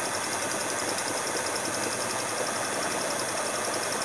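Small electric motor of a homemade wooden line-winding machine running steadily, spinning a spool as it winds kite line onto it.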